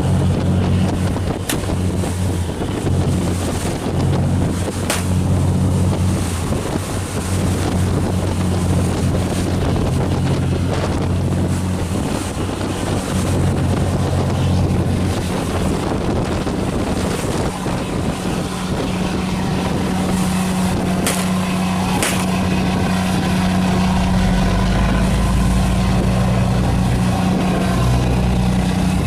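Boat engine running steadily under way, its note shifting a couple of times, with wind buffeting the microphone and rushing water. A few sharp knocks cut through.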